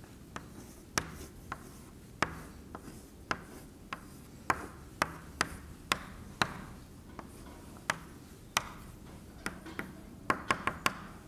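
Chalk drawing on a blackboard: irregular sharp taps and short scraping strokes as lines are drawn, with a quick run of taps near the end.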